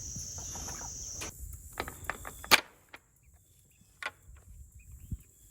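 Steady high-pitched chirring of insects that cuts off suddenly about a second in, followed by a few sharp clicks and one louder knock.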